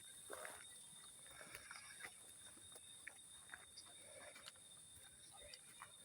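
Quiet hillside forest ambience: a steady, high-pitched insect drone with a thinner steady tone beneath it, and scattered small clicks and rustles.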